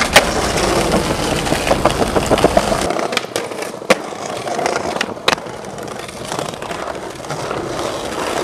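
Skateboard wheels rolling over pavement, with sharp clacks of the board on the ground: a loud one right at the start and others about four and five seconds in. A low vehicle rumble runs underneath for the first three seconds and then cuts off suddenly.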